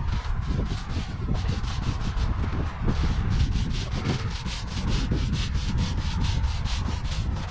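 Paint roller rolling wet paint across a rough concrete wall: a steady rasping rub, pulsing about five times a second, with a low rumble underneath.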